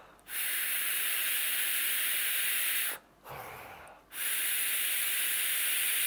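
Direct-lung draws on a Blaze Boro tank in a Blaze AIO vape, its 0.3-ohm coil fired at 60 watts: a steady airy hiss of air rushing through the airflow and coil. Two long pulls of about two and a half seconds each, with a short exhale between them about three seconds in.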